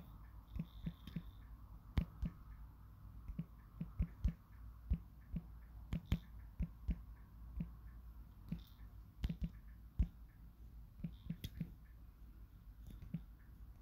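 Fingertips tapping on a smartphone's touchscreen while typing on the on-screen keyboard: short, irregular taps, a few each second, with uneven pauses between words.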